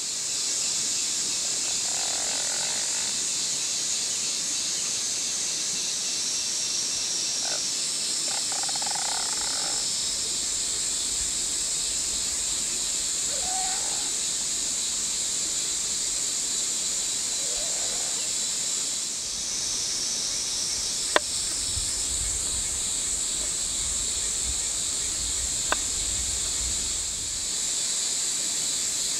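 Steady high-pitched insect chorus, with a few short bird calls in the first part and two sharp taps of a kitchen knife on a wooden cutting board in the later part.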